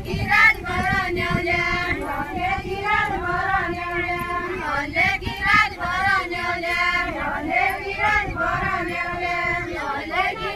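Group of women singing a deuda folk song together, voices only, with the melody rising and falling in short phrases.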